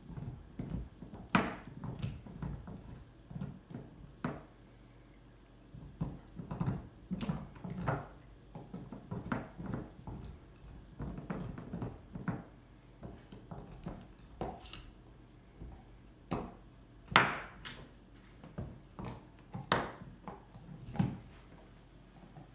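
A dog gnawing on a bone: irregular crunching and scraping with scattered sharp knocks, two of them louder, one about a second in and one about two-thirds of the way through.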